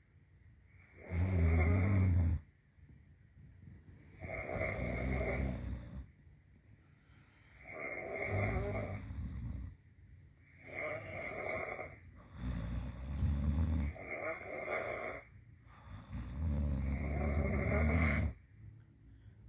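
Two sleeping people snoring, a loud snore about every two to three seconds with quieter breathing between. Some snores are deep and low, others higher-pitched.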